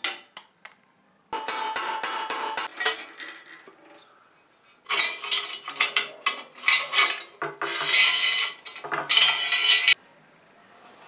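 Hand tools and steel parts clinking and rattling as a pallet truck's handle and pump assembly are taken apart with a ratchet spanner. The sound comes in two bursts: a short one early, then a longer, louder run of rapid clicking and rattling that cuts off abruptly near the end.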